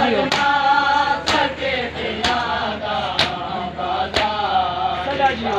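A group of men chanting a noha together, with the sharp slap of their hands beating their chests (matam) in unison about once a second, five strikes.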